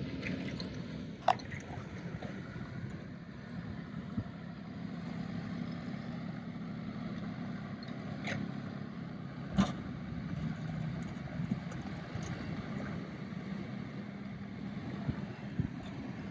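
A vehicle engine running steadily with a low hum, with a few sharp clicks or knocks over it, the loudest about ten seconds in.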